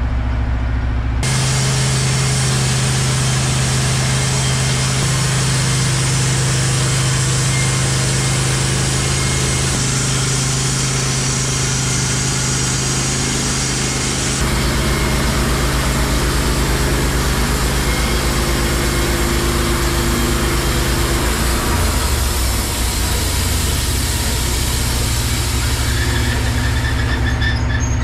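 Wood-Mizer LT15 portable bandsaw mill's gas engine stepping up from idle about a second in, then running steadily under load with the hiss of the band blade cutting through an eastern white pine log. About twenty-two seconds in the engine note drops and settles lower, and the hiss fades near the end.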